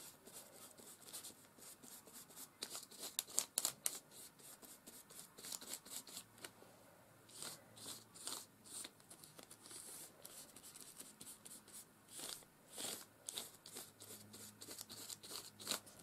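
Stiff paintbrush stroking and dabbing matte medium over a thin paper napkin, giving faint, irregular scratchy brush strokes with a little paper crinkling, in clusters.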